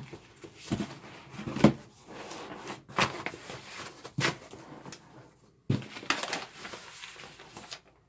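Cardboard box flaps and packing being handled by hand: rustling and scraping of cardboard, broken by about five sharp knocks and crackles, with a paper sheet rustling as it is lifted out.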